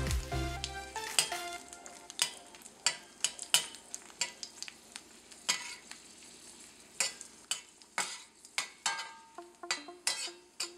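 Cumin seeds and dried red chillies sizzling in hot oil and ghee in a stainless steel pan, the tempering step, fried until the chillies change colour. A spatula stirs and scrapes against the pan in sharp, irregular strokes.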